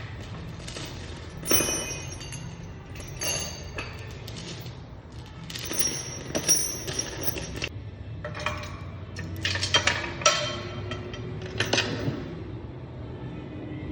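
Hard objects clinking and clattering: a series of irregular sharp knocks, each with a short metallic ring, over a low steady hum.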